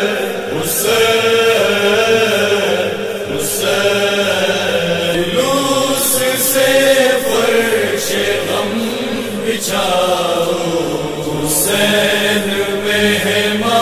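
A noha, the Muharram lament, chanted in Urdu in long, held, gliding melodic phrases, with short pauses for breath between them.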